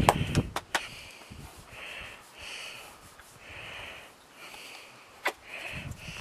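Soft swishing strokes, roughly one a second, of a hand rubbing a paint horse's neck and head, with a few sharp clicks in the first half second and another a little after five seconds.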